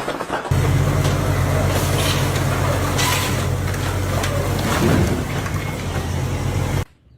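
A large engine running steadily, a low hum under a noisy rush. It starts about half a second in and cuts off suddenly near the end.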